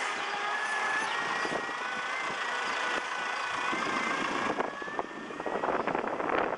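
A truck idling steadily, with a thin, slightly wavering high whine over the engine noise. About five seconds in the whine fades and gusts of wind start buffeting the microphone.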